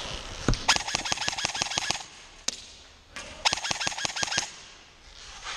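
Airsoft electric rifle firing full-auto: two bursts of rapid, evenly spaced shots at about ten a second, the first over a second long and the second about a second. A single thump comes just before the first burst.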